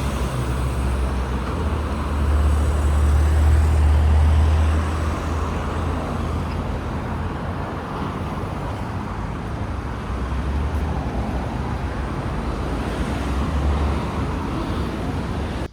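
Steady road noise from a moving vehicle: a low rumble with a hiss over it, growing louder for a few seconds early in the clip.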